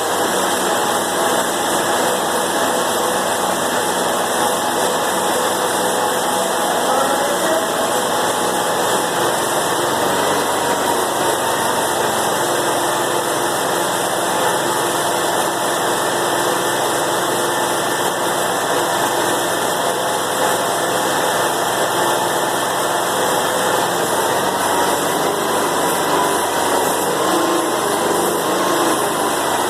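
Skid steer engine running steadily, just brought to life on its first start after being rigged up to run.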